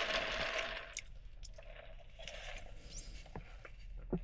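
Rustling for about the first second, then a few faint clicks and scrapes: food containers and a drink cup being handled.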